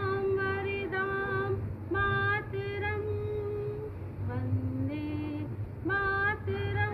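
A high female voice singing a song in sung phrases of about a second each, with long held notes that slide up into pitch, over a steady low hum.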